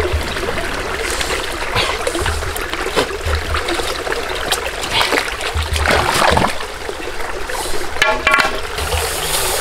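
Steady trickle of a shallow stream, with scattered clicks and a couple of louder short noises about six and eight seconds in.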